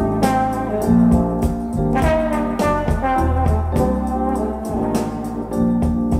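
Jazz played back from a vinyl record: brass horns play held melody lines over a walking bass and drums keeping a steady beat.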